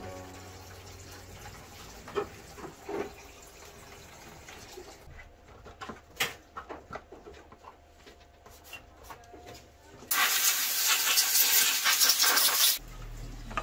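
Cloth wiping and rubbing inside a coffee machine's plastic housing, with light rustles and a few small knocks and clicks. About ten seconds in, a loud rushing hiss lasts just under three seconds, then cuts off.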